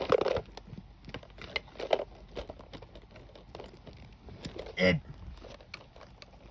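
Small clicks, taps and rustling from hands handling a plastic toy vending machine, with a few louder knocks and one short louder sound near the end.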